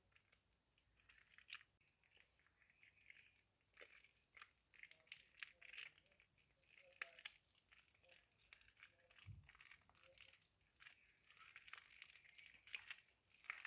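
Soaked soap in a bowl being squeezed and worked, giving faint, irregular wet crackling and squishing, with a soft low thud about nine seconds in.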